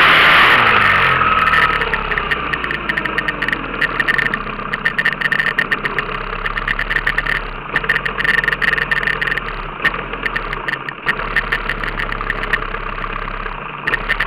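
A 15 hp outboard motor on a small V-bottom boat throttling back: its pitch falls over the first two seconds, then it idles with a rapid ticking.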